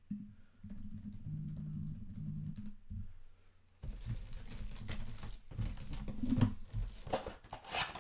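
Crinkling, tearing and clicking of trading-card packaging being handled and opened, starting about four seconds in. A low muffled sound comes before it.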